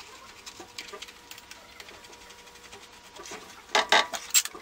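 Light metal clicks and ticks of a hex key turning a new bolt into a dirt bike's front brake caliper, with a few louder sharp clacks near the end.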